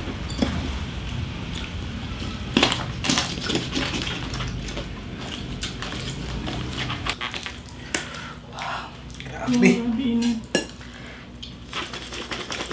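A knife cutting and scraping through a whole roasted pig (lechon), with irregular clicks and crackles as the blade works through the crisp skin and meat around the ribs. A short low voice sound comes about ten seconds in.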